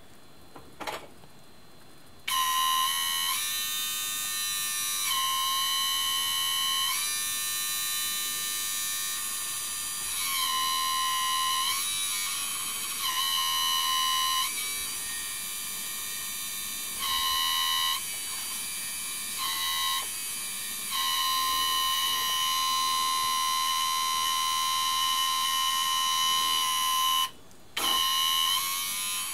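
Small electric hydraulic pump in an RC model tractor starting up about two seconds in and running with a steady high whine, its pitch stepping up and down every few seconds as the loader cylinders are worked through the valves. It cuts out for a moment near the end.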